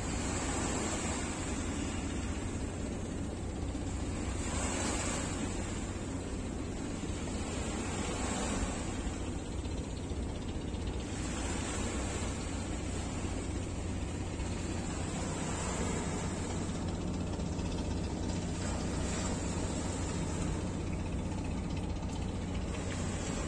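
A vessel's engine running with a steady low hum, under the rush and splash of river water churned up along the hull, swelling every few seconds.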